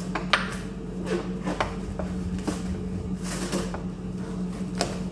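Scattered light knocks and clinks of a glass mixing bowl of dough being handled on a stone countertop, over a steady low hum.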